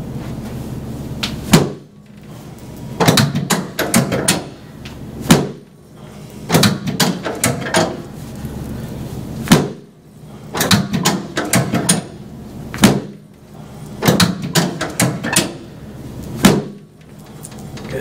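Chiropractic drop table's sections dropping with sharp clacks under a series of quick thrusts, well over a dozen in irregular groups. These are drop adjustments meant to torque a sacrum rotated toward the right back to the left.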